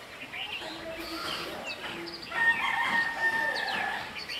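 A rooster crowing, its long held note starting a little past halfway and lasting about a second and a half, with small birds chirping around it.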